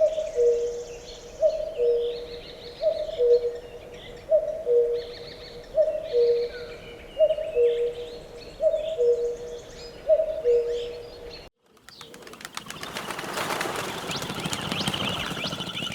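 A bird gives a low two-note call, the second note lower than the first, about every second and a half, over smaller birds chirping. About eleven seconds in, it cuts off suddenly and a rushing sound swells and fades, with a steady high tone in it.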